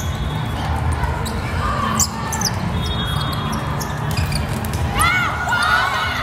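Indoor volleyball rally in a large, echoing hall: sharp hits on the ball, the loudest about two seconds in, and a flurry of sneaker squeaks on the court near the end. A steady hum of voices from the hall runs underneath.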